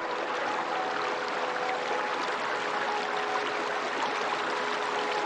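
Running water of a river or stream rushing steadily after fading in. Faint held musical tones sit beneath it.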